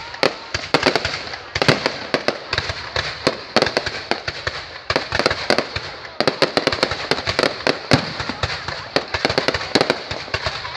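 Fireworks going off: a rapid, irregular string of sharp pops and bangs over continuous crackling.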